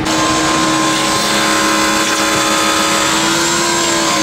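A motor starts abruptly and runs at a steady speed with a loud, high-pitched whine, its pitch creeping up slightly near the end.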